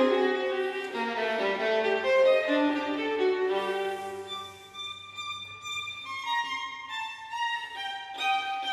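Instrumental background music: a violin playing a melody of held notes.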